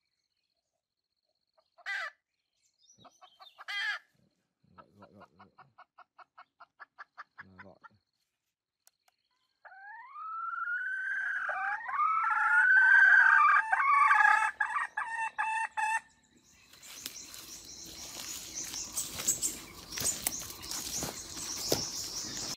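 A recorded red junglefowl rooster crow played through a small handheld electronic game caller. It comes after a quick run of short pulses that grow louder, about four a second. The crow is long and wavering, rising in pitch, and runs for about six seconds. After it, a noisy rustle fills the last few seconds.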